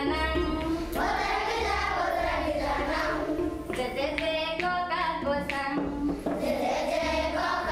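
A group of schoolchildren singing a folk song together, with long held notes.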